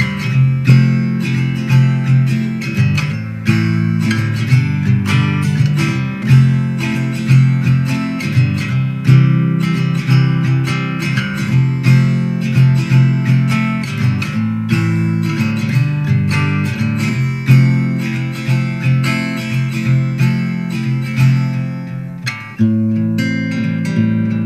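Acoustic guitar music with strumming, played in through the mixer's line input for a preamp test. It briefly drops away a couple of seconds before the end, then comes back.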